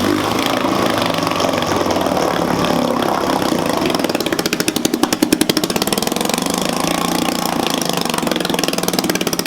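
Vintage 3 HP Sea-Bee outboard motor running fast and loud, a rapid, even firing rattle. It has just caught after its clogged fuel jet was cleared, and it is racing faster than expected, a sign the speed adjustment needs setting.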